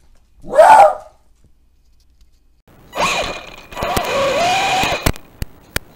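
Small electric drive motors and gearboxes of a toy RC tank whirring in spurts as it drives and turns. A short loud whir comes about half a second in. From about three seconds a longer run follows, its whine rising and falling with motor speed, broken by a few sharp clicks near the end.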